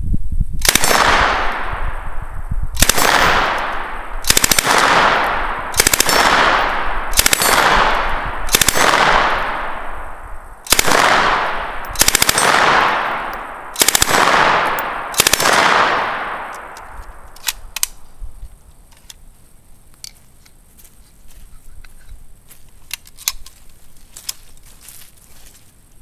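9mm Uzi submachine gun firing on full auto: about ten short bursts over some sixteen seconds, each trailing off in echo. After that come only scattered light clicks.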